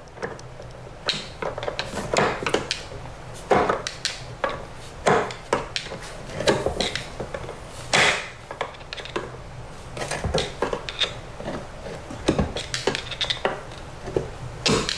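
A screwdriver turning a dishwasher's front leveling leg, with handling noise: irregular clicks, knocks and short scrapes of the driver against the leg, the underside of the machine and the floor.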